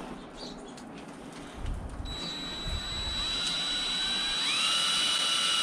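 Cordless drill boring a pilot hole into a vinyl railing rail bracket. The motor's whine starts about two seconds in and rises in pitch near the end.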